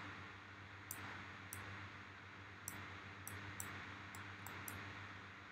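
Faint computer mouse clicks, about eight short sharp ones at irregular intervals, over a steady low electrical hum and hiss.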